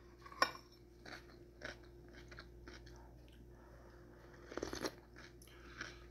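Close-up eating sounds: a spoon clicks against a ceramic soup bowl just after the start, then a few soft crunches of chewing crunchy cucumber salad, and a louder bout of sipping soup from the spoon about four and a half seconds in.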